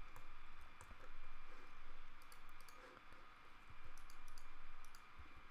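Light, irregular clicks of a computer mouse and keyboard, coming in small clusters over a faint steady background hiss.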